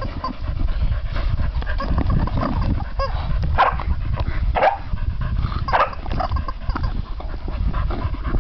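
Two dogs playing, a Staffordshire bull terrier mauling a rubber chicken toy, with three short sharp sounds spread through the middle over a steady low rumble.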